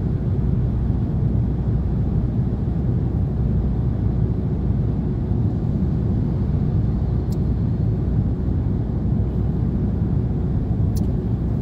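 Car cabin noise while driving: a steady low rumble of road and engine.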